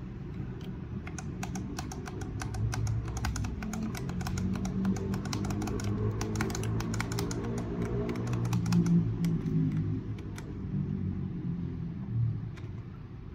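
Keys of a Rexus Legionare MX9 mechanical keyboard with Outemu red linear switches being pressed in a quick, dense run of clacks that thins out and stops about ten seconds in. Background music plays underneath.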